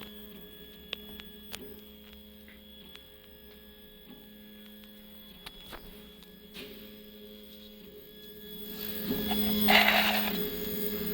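Home-made RepRap 3D printer's NEMA 17 stepper motors on DRV8825 drivers humming with a steady tone, with a few faint clicks. It gets louder about nine seconds in, with a short rushing burst about a second later as the printer moves.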